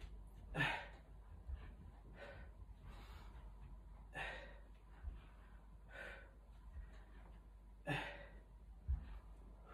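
A man's hard breathing during an exercise, sharp breathy exhalations every couple of seconds, with a few dull low thumps in between, the loudest near the end.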